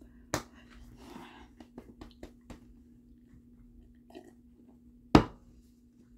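Sharp handling knocks and a run of small clicks. The loudest knock comes about five seconds in, just after a sip from a plastic cup, as the cup is set down.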